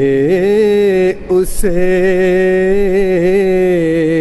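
A young man singing an Urdu nazm solo, without accompaniment, drawing each word out over long, gently wavering held notes. There is a short break with a hissed consonant about a second in, then one long held note.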